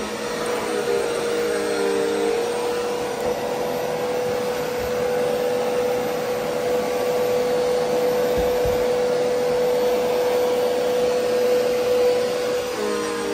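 Bagless upright vacuum cleaner running on carpet: a steady motor whine over a rush of suction. The pitch wavers in the first two seconds and again near the end as the load on the motor changes.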